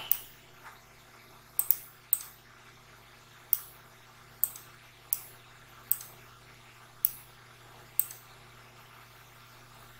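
Computer mouse clicking: about ten short, sharp clicks at uneven intervals, two close together near the start, over a faint steady low hum.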